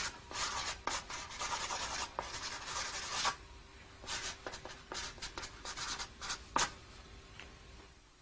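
Felt-tip marker scratching across stiff drawing card in quick scribbled strokes, with a short lull a little past the middle and the strokes dying away near the end.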